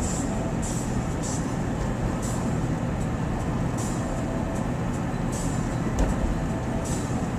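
Steady running noise of a vehicle on the move, a low hum under a constant rush, with brief hissy flares now and then and a single thump about six seconds in.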